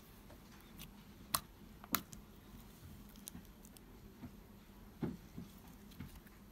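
Hands squishing, folding and stretching slime, making faint sticky clicks and small pops, with two sharper clicks between one and two seconds in.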